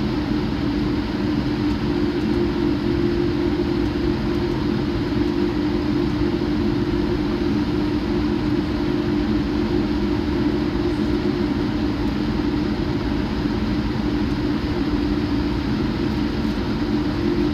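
Jet airliner cabin noise during taxi: the engines at low taxi power and the cabin air running steadily, a constant drone with a steady low hum, neither rising nor falling.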